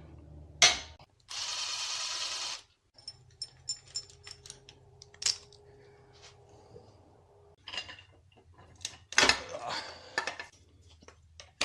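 A handheld power tool runs in one steady burst of a little over a second, about a second in, loosening a nut on an H22 engine. Scattered sharp metal clicks and taps of tools and parts follow.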